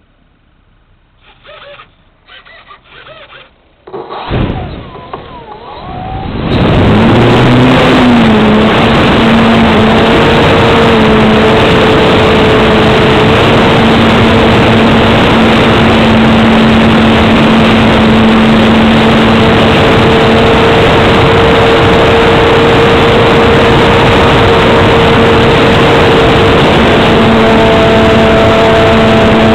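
Motor and propeller of an RC Sukhoi Su-26 aerobatic model start about four seconds in and rise within two seconds to a loud steady drone with a steady hum in it. It is heard from a camera on the plane itself, with wind rushing over the microphone in flight.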